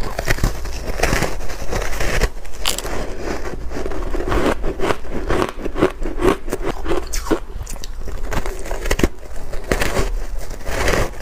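Close-miked crunching and chewing of dry shaved ice dusted with matcha powder: dense, irregular crackles and scraping crunches, with no pause.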